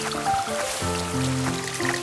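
Background music: held chords that shift every half second or so, with short, light higher notes on top.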